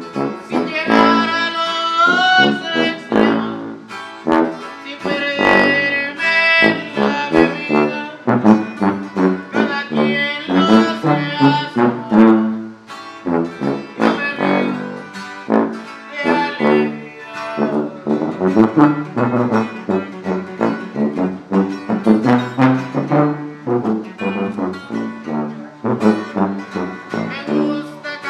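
Sierreño-style music: a sousaphone playing the bass line under two acoustic guitars, strummed and picked.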